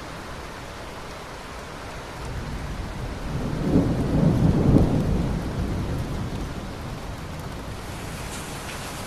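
Steady rain with a roll of thunder that swells up a couple of seconds in, peaks in the middle and fades away.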